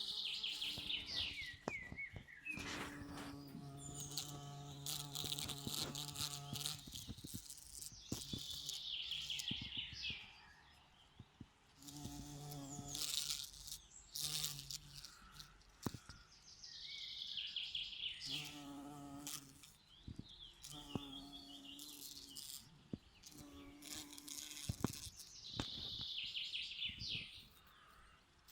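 Bees buzzing, their wing hum rising and fading as they come and go. A songbird repeats a falling, trilled song phrase about every eight seconds.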